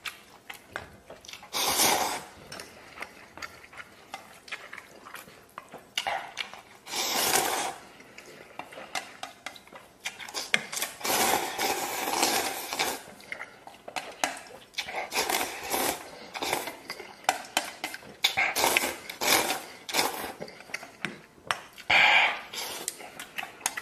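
Instant noodles being slurped in repeated noisy bursts of about a second or two each, six in all. In between, utensils click against the bowl.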